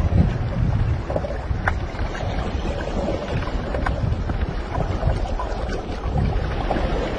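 Wind rumbling on the microphone over shallow sea water, with a few short splashes.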